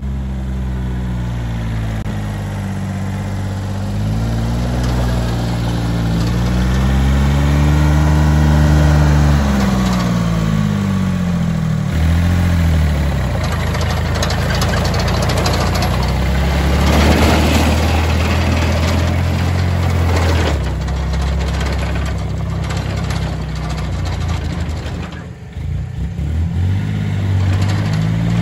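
Engine of a small tracked dumper revving up and down for the first dozen seconds, then running at a steadier speed as the machine drives off on its tracks.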